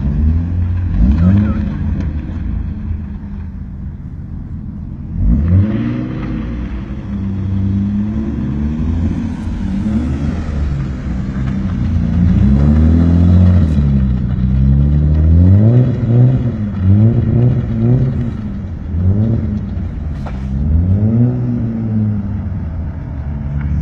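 BMW E36 320i's two-litre straight-six engine revving up and down again and again as the car drifts donuts on ice. It is quieter for a few seconds early on, then louder from about five seconds in.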